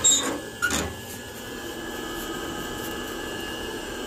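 Heavy steel firebox door of a wood-fired boiler being unlatched and pulled open: two metal clanks in the first second, then a steady rushing noise.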